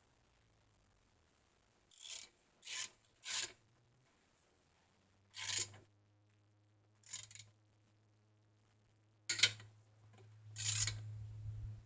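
A series of short rubbing or scraping strokes, about seven, irregularly spaced, with a faint low hum underneath from about halfway through.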